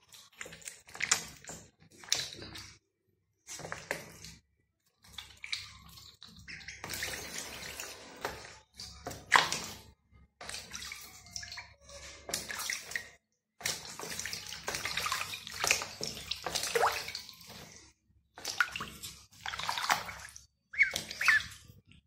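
Ducklings splashing and paddling in a plastic tub of water, in irregular bursts with short pauses between them.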